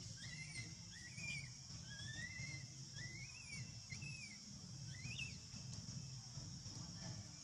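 Baby long-tailed macaque giving a series of short, high coo calls, each rising and then falling in pitch, about one a second.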